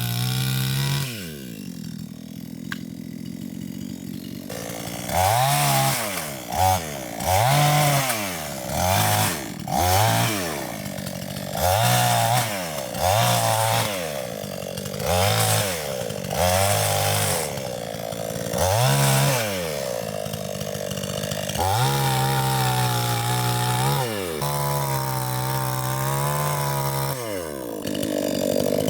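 Chainsaw running, cutting old rubber-tree stumps down close to the ground: it idles for the first few seconds, then is revved up and down about a dozen times in quick succession, with two longer revs near the end.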